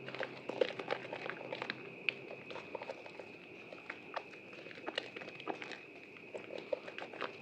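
A soaked bar of Prima Protect White soap being lathered and squeezed by hand, giving many irregular wet clicks and crackles.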